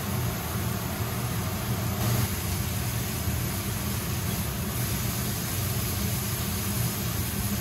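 Diced zucchini, carrot and onion frying in a pan and being stirred with a spatula, under a steady low mechanical hum.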